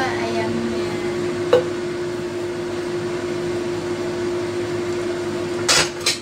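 A steady motor hum with a constant drone, as from a kitchen appliance fan. A single sharp knock comes about a second and a half in, and two short, loud, noisy bursts come near the end.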